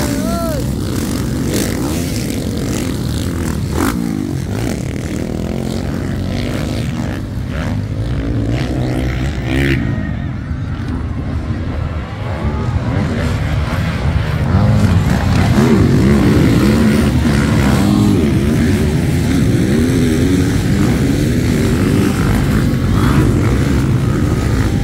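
Motocross dirt bikes racing past, their engines revving up and falling off as riders throttle through the turns and jumps. It gets louder from about halfway through as bikes come closer.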